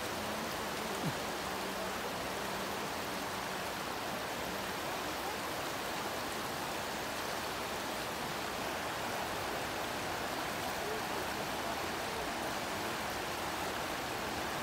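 Shallow river rushing steadily over rocks in a riffle: a constant, even rush of water.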